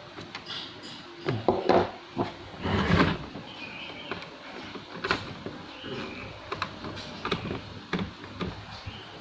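Plastic laptop case being pried apart by hand and tool: irregular clicks, snaps and short scrapes as the case clips come loose, busiest about one and a half to three seconds in.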